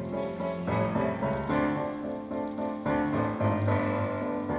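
Keyboard music: a slow run of held notes and chords, a new one sounding every second or so.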